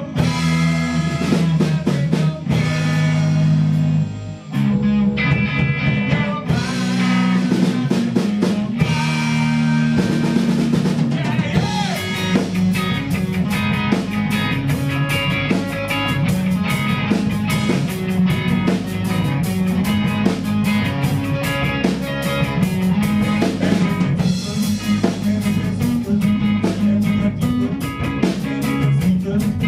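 Live band playing an instrumental passage: guitar chords over bass notes, with the drum kit coming in fully about ten seconds in and keeping a steady beat.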